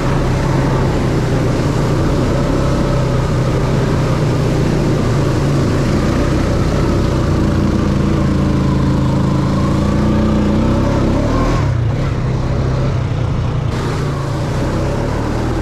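An ATV's engine running while it drives through a shallow stream, its tyres throwing up water. There is a loud, constant rush of splashing and air noise, and the engine pitch rises and falls about halfway through.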